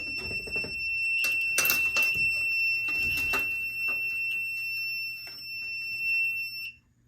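FireLite MS-2 fire alarm control panel's trouble sounder giving one steady high tone, the sign of a power trouble because no standby batteries are connected; it cuts off abruptly near the end. Clicks and knocks of handling sound over it.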